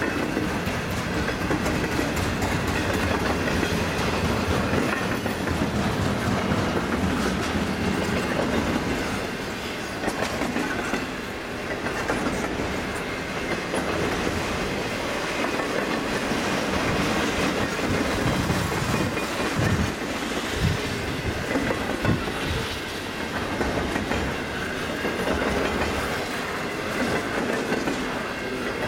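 Double-stack intermodal well cars rolling past, their wheels clattering steadily over the rail joints, with a few heavier thumps about two-thirds of the way through.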